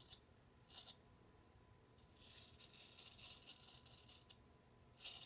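Straight razor scraping through lathered two-day stubble: faint scratchy rasping strokes, a short one just under a second in, a longer one from about two to four seconds, and another starting near the end.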